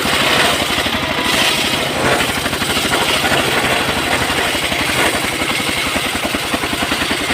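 Engine-powered wood saw running steadily, its engine firing in a rapid, even pulse.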